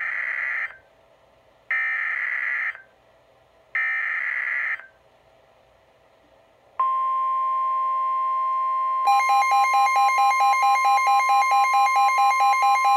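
NOAA Weather Radio emergency alert header: three short buzzing SAME data bursts of the digital alert code. Then the steady 1050 Hz warning alert tone comes on, and about two seconds later a weather radio's pulsing alarm joins it at about four pulses a second. Together they announce an incoming tornado warning.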